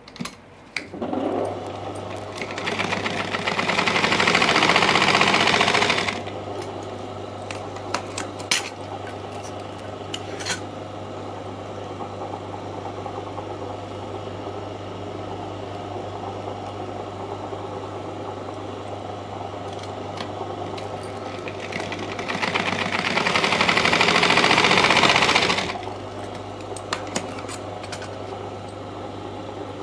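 Sewing machine stitching in two runs: one from about a second in, lasting some five seconds, and another about three-quarters of the way through. A steady low hum continues between the runs.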